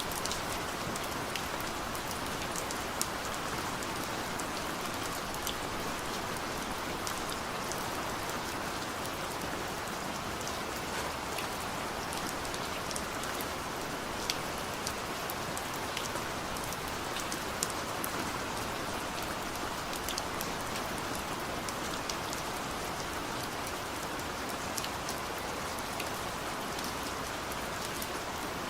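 Steady rain falling, a constant hiss with scattered sharp drop ticks landing on a hard surface.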